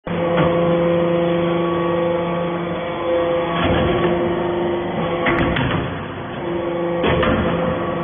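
Shavings baler with its chain plate conveyor running: a steady machine hum, broken by several short metallic knocks and clanks.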